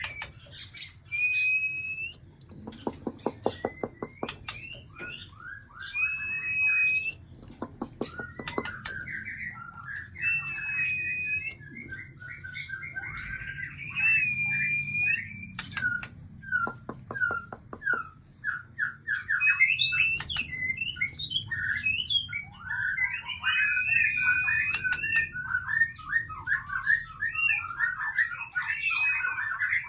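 A songbird singing a long, varied song: clear whistled notes that hold steady or bend, mixed with quick chattering phrases and several fast rattles.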